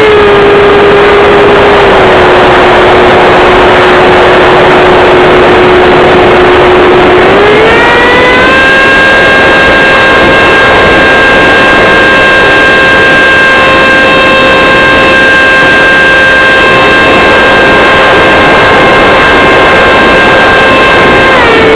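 Loud whine of a 70 mm electric ducted fan, heard from a camera on the model, over a heavy rush of air. The pitch drops, rises again about seven or eight seconds in and holds steady, then drops near the end as the throttle is eased back, raised and eased back again.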